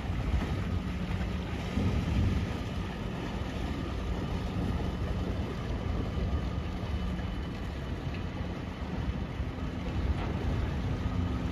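Lake car ferry San Cristoforo running its engines as it comes into port: a steady low rumble with a held low hum, and a second, slightly higher hum joining near the end.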